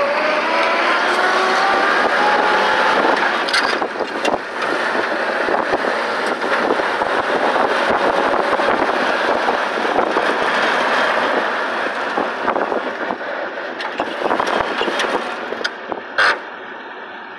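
1953 Willys M38A1 jeep driving on a road: its engine rises in pitch as it accelerates over the first few seconds, under heavy wind and road noise. The noise eases as it slows, and a brief loud bump comes near the end.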